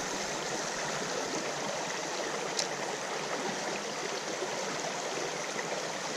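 Creek water running steadily over rocks, a continuous rushing with one faint click about two and a half seconds in.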